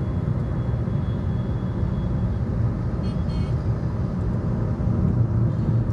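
Steady low rumble of engine and road noise inside the cabin of a Maruti Vitara Brezza cruising at about 60 km/h in fourth gear, its 1.3-litre diesel engine turning near 2,000 rpm.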